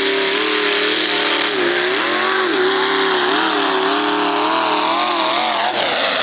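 Lifted mud-bog pickup truck's engine revving hard as it drives through a mud pit, its pitch rising and dipping several times as the throttle is worked, then falling away near the end.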